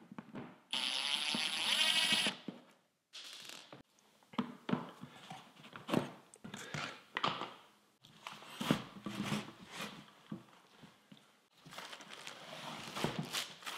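Ridgid cordless drill running for about a second and a half as it bores into a cardboard shipping tube's end cap, then a brief second run. After that come knocks and scrapes as the cap is pried out and the tube handled, and near the end a crinkling of plastic wrap as the barbell slides out of the tube.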